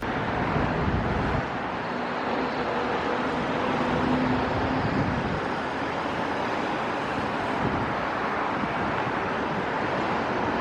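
Steady outdoor street noise with passing traffic, and a faint tone swelling briefly about four seconds in.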